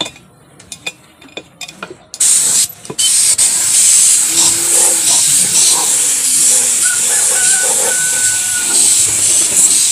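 A loud, steady high hiss that cuts out for a couple of seconds near the start, with a few sharp clicks in the gap, then comes back and holds.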